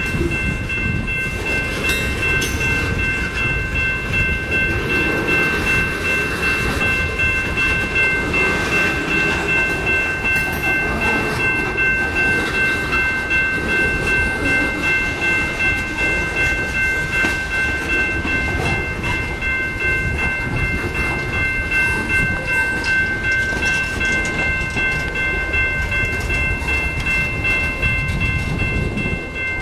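Freight train of covered hopper cars rolling past a grade crossing: a steady low rumble of wheels on rail with scattered clicks. Over it, steady high tones from the grade-crossing warning bell run throughout.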